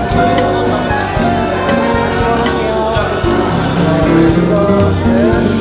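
Music with a steady beat: held melody notes over a bass line.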